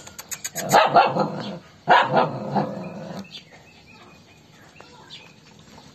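Small dogs barking and growling in two short bouts, squabbling at a food bowl; after about three seconds it falls quieter, with only faint clicks.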